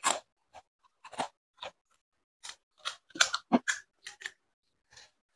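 Irregular crisp crunches and clicks of fuchka being filled and eaten: hollow fried puri shells cracking and a spoon ticking against a ceramic bowl, in about a dozen short separate snaps. The loudest cluster comes a little over three seconds in.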